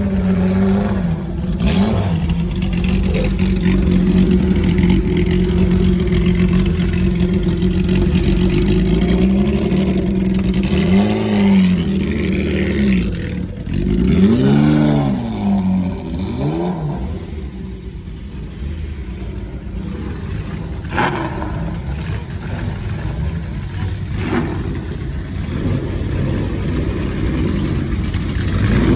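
Historic racing car engines idling, with the throttle blipped several times about halfway through, the revs jumping up and falling back quickly; a few sharp clicks in the later part.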